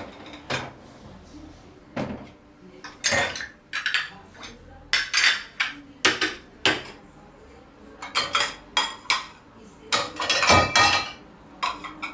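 Dishes and cutlery clattering as they are handled, in irregular bursts of clinks and knocks.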